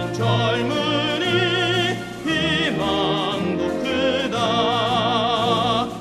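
Background music: a classical, operatic-style singing voice with strong vibrato over orchestral accompaniment.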